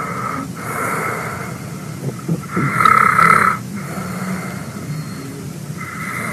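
A man snoring with his mouth open, one breath after another; the loudest snore comes about halfway through and lasts about a second.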